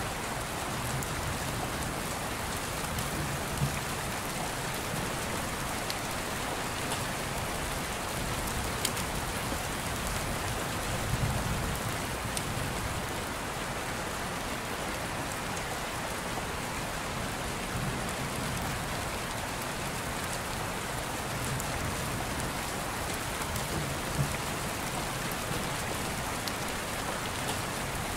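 Steady rain, an even hiss with scattered faint drop ticks.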